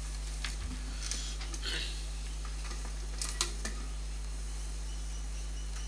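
A few light metallic clicks and scrapes of an Allen key working the small screws that hold the brush and flicker inside a 3D printer, over a steady low electrical hum.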